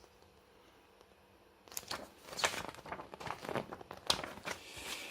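Packaging being handled: irregular crinkling and rustling that starts a couple of seconds in, after a quiet start.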